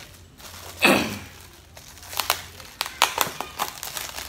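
Clear plastic wrap on a cardboard package being cut with scissors and pulled about: crinkling and crackling with scattered sharp snips and clicks. The loudest moment is a short sound falling in pitch about a second in.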